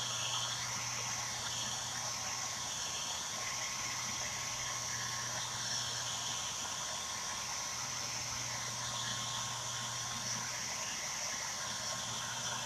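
Steady low hiss with a faint low hum: quiet room tone.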